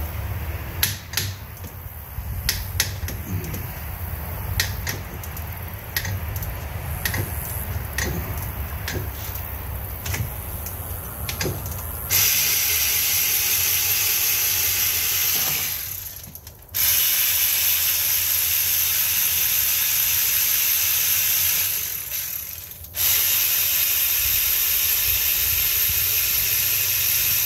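Scattered sharp clicks of a ratchet and tools working on engine bolts. Then, about twelve seconds in, three long bursts of loud, steady hiss, each four to five seconds long, starting and stopping abruptly.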